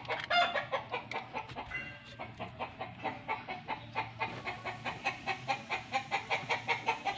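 Chickens clucking in a steady rhythmic series, about three or four clucks a second.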